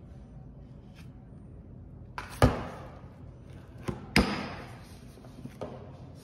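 Two sharp knocks about two seconds apart, with a couple of lighter taps: plastic bottles and supplies being set down in a plastic janitorial cart tray, each knock ringing on briefly in a tiled restroom.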